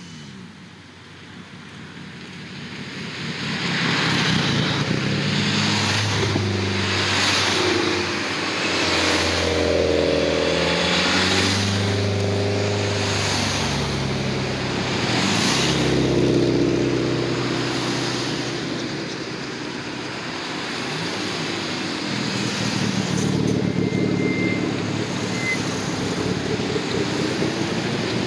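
A procession of cars driving past one after another at cruising speed, among them a Mitsubishi Lancer Evolution and a Subaru Forester. Several engine notes rise and fall over tyre noise as each car goes by, and the sound swells a few seconds in, eases off briefly, then builds again.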